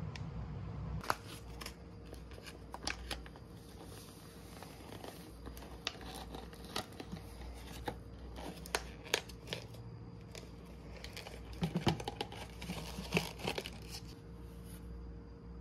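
Plastic packaging crinkling and tearing as it is handled, with many small sharp clicks and rustles.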